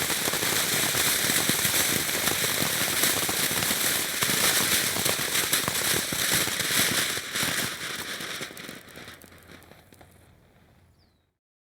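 Firework fountain spraying with a dense hiss of fast crackles. It thins out and fades over the last few seconds, then stops just before the end as the fountain burns out.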